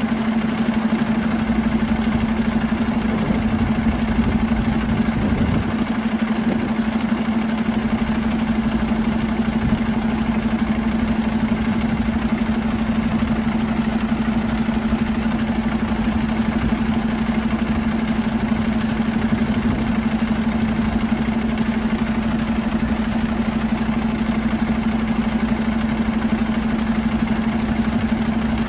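2022 Cummins X15 inline-six diesel engine idling steadily, heard from beside its open engine bay: an even drone with one strong steady hum.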